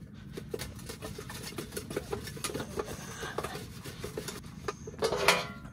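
Chicken wings being tossed in sauce inside two metal baking pans held rim to rim: light rubbing and scraping with many small irregular taps as the pans shift in the hands.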